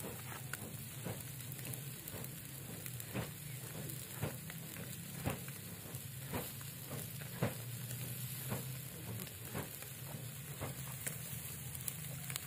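Whole fish sizzling on a wire grill over glowing charcoal, a steady hiss with sharp crackles and pops about once a second.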